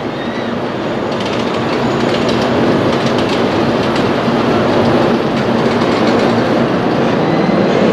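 A train on JR Kyushu's Kagoshima Main Line approaching the station, a rumble that grows steadily louder over the first few seconds and then holds, with wheels clicking over rail joints.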